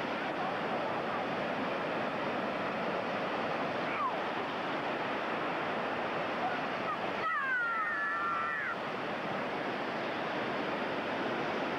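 Ocean surf breaking and washing steadily. About seven seconds in, a brief high-pitched voice is heard over the surf.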